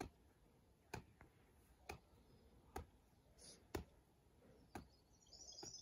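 Faint slaps of a rubber ball landing in two hands, about once a second, seven times, as it is tossed up and caught over and over.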